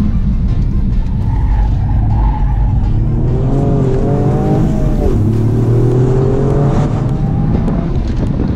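Toyota GR Yaris's turbocharged three-cylinder engine heard from inside the cabin while driven hard. The revs climb about three seconds in, drop sharply just before the midpoint, then climb again.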